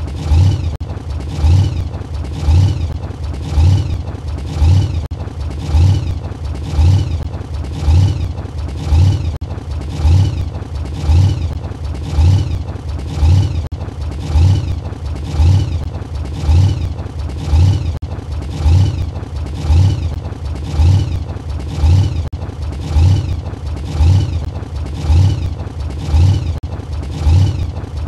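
Blown Camaro engine with a chrome roots-type supercharger running at idle, loud and lumpy. It swells and falls in a regular lope about once a second.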